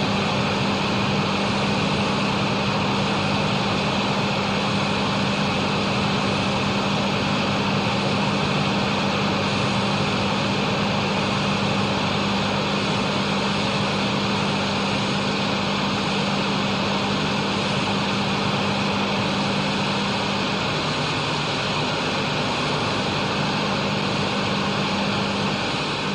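Exhaust fan running steadily: a continuous rush of air with a steady low hum, the hum shifting slightly about twenty seconds in.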